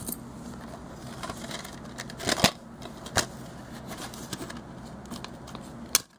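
Plastic shrink wrap on a DVD case crinkling and tearing as it is picked at and pulled off, with sharp clicks from the plastic case being handled. The loudest crackling comes in a cluster about two and a half seconds in.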